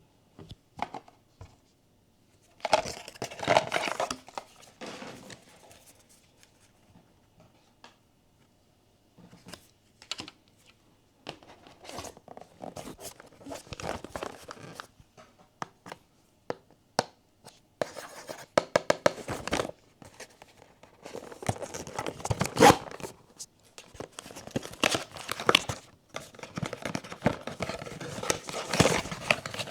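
Blind-box toy packaging being opened by hand: paper and foil wrapping torn and crinkled in irregular bursts, with light clicks and taps between and a short pause partway through.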